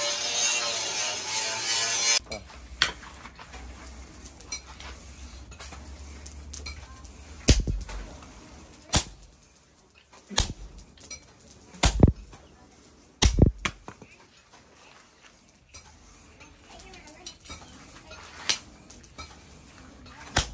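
Hand hammer striking a red-hot cleaver blade on a steel anvil: about seven separate metallic blows, spaced a second or more apart, mostly in the middle of the stretch. At the start, about two seconds of steady rushing noise from the blown charcoal forge.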